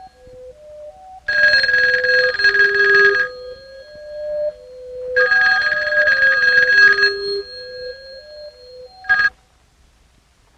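Telephone bell ringing: two rings of about two seconds each, about four seconds apart, then a third ring cut short near the end as the receiver is reached. A slow stepping melody plays underneath.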